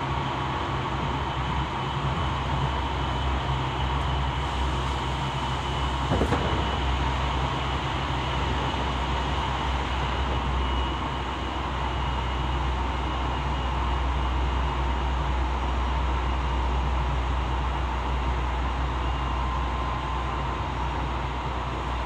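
Running noise heard inside the cabin of a Tokyo Metro 15000 series electric train: a steady low rumble with faint steady whines, and one sharp click about six seconds in.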